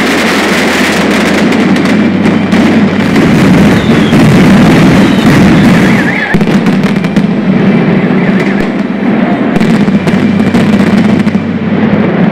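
Mascletà firecracker barrage: masclets and firecrackers going off in a dense, continuous rapid-fire volley of loud bangs and cracks. It is loudest a few seconds in and dips briefly about six seconds in.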